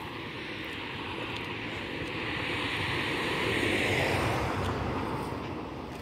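A vehicle passing by: a rushing noise that swells, peaks about four seconds in, drops in pitch and fades away.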